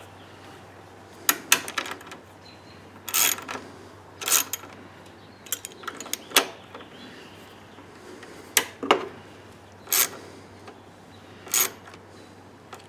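Ratchet wrench clicking in short, irregular bursts as the bolts holding the airbox cover on a Briggs & Stratton mower engine are tightened a little over snug.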